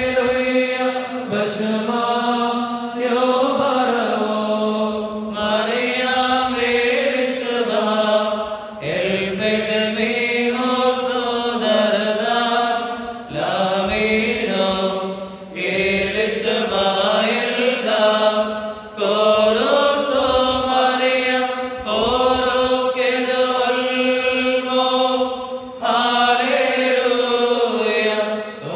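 Syriac liturgical chant of the evening prayer: a single melodic line of chanting voices, sung in phrases of a few seconds with short breaks between them.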